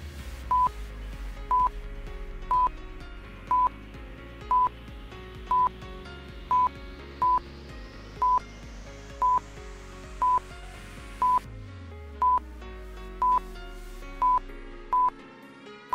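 Countdown timer sound effect: a short high beep about once a second over background music. A rising swoosh in the music cuts off suddenly about eleven and a half seconds in.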